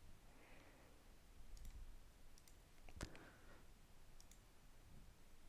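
Near silence with a few faint computer mouse clicks, the sharpest about three seconds in.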